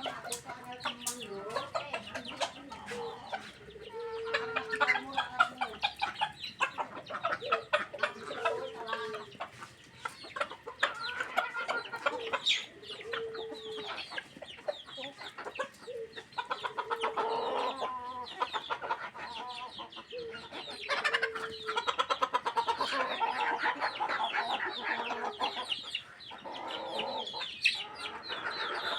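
A flock of chickens clucking continuously, with short repeated calls, over many quick sharp taps and clicks.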